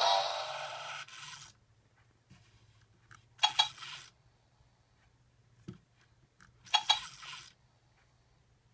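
Music fades out in the first second or so. Then the Black I-Cat robot toy cat gives two short electronic sounds from its speaker, about three seconds apart.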